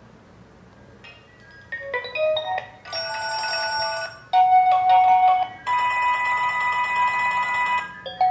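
A run of phone ringtone previews played one after another, each a short electronic melody or ringing tone in a different sound. They start about a second in and switch every second or so. The longest, a steady ringing tone lasting about two seconds, comes near the end.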